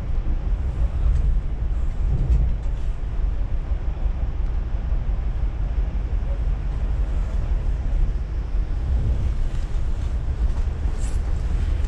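Passenger train running along the track, heard from inside the carriage: a steady low rumble, with a few faint ticks near the end.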